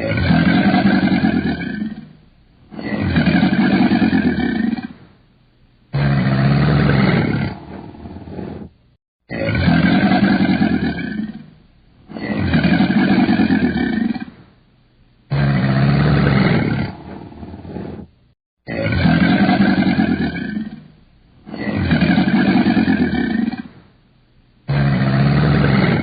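A large wild animal roaring, about nine deep calls of about two seconds each, repeated at a steady rate of roughly one every three seconds.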